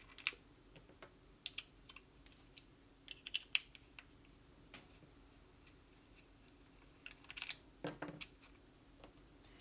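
Scattered light metallic clicks and taps of a hex key working the frame screws out of a paintball marker and the parts being handled, with a few louder knocks near the end.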